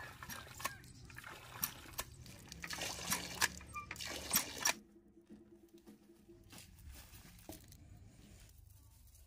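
Water from a cast-iron hand pump pours and splashes into a clay bowl of potatoes, with sharp clicks and knocks as the pump is worked. It cuts off suddenly a little under five seconds in, leaving only faint ticks.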